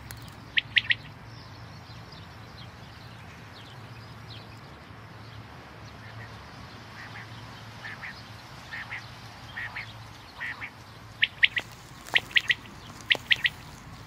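Common quail singing its three-note 'wet-my-lips' song: one loud phrase about half a second in, fainter calls in the middle, then three loud phrases in quick succession near the end.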